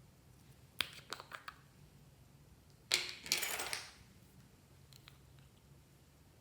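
Slime-mixing handling noise: a quick run of sharp clicks about a second in, then a short, louder crackling clatter about three seconds in.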